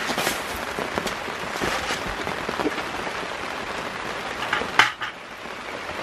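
Steady rain patter under a tarp cover, with scattered small ticks and one sharp knock a little before five seconds in.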